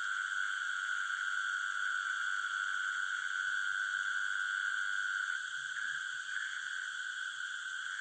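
Dense night chorus of calling insects and frogs: a steady, unbroken high trilling.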